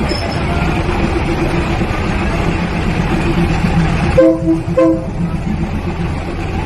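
Train running on the rails with a steady rumble, sounding its horn in two short blasts about four seconds in.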